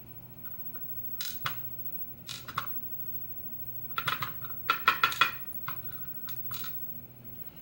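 Small metal lock pins and springs tipped out of a pin-tumbler lock cylinder, clinking and rattling as they drop onto a surface in scattered bursts, busiest about halfway through.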